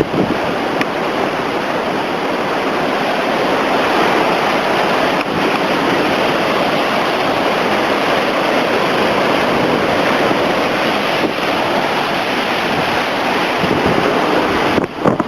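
Heavy hurricane-driven surf breaking on the shore, a loud, unbroken rush of water, with wind buffeting the microphone. Near the end the sound turns choppy and uneven.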